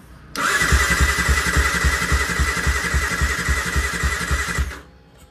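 Yamaha R15's single-cylinder engine cranked on its electric starter for about four seconds, a steady starter whirr with about five even compression thuds a second, stopping suddenly without the engine catching.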